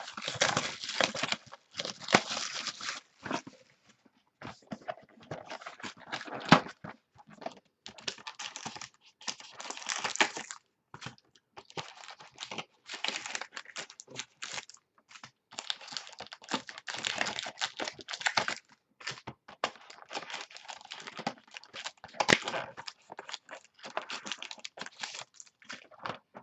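Plastic wrapping crinkling and tearing as a box of football trading cards is opened and its packs handled, in repeated irregular bursts of rustling.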